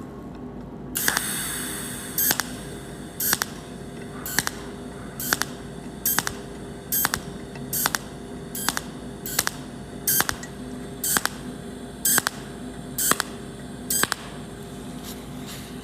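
Cold welding machine laying spot welds with its tungsten electrode: a quick series of short, sharp zaps, roughly one or two a second, each pulse forming one weld spot, over a steady low hum. A hiss comes about a second in.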